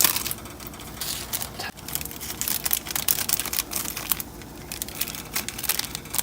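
Plastic seasoning and sauce packets crinkling and being torn open and squeezed, in irregular crackly bursts.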